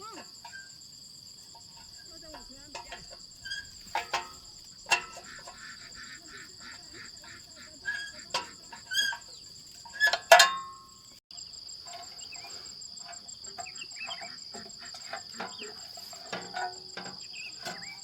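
Insects chirping steadily in a high, fast-pulsing chorus. Over it come a series of sharp metallic clinks and knocks from work on the machine, loudest about ten seconds in.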